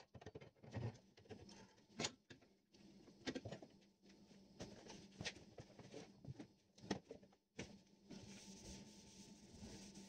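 Faint handling noise at a bench vise: scattered metal clicks and knocks as a steel rod and brass trumpet parts are gripped and moved. A steady low hum runs underneath.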